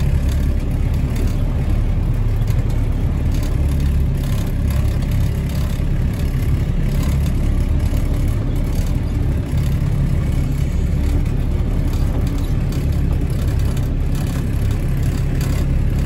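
Steady low rumble of a vehicle driving slowly over a muddy dirt road, engine and tyre noise heard from inside the cab.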